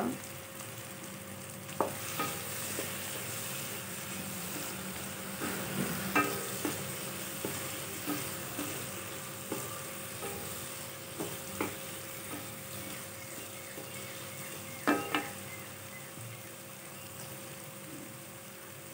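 Drumstick pieces and onion-tomato masala sizzling in a non-stick kadai, stirred with a wooden spatula that scrapes and knocks against the pan now and then over a steady frying hiss.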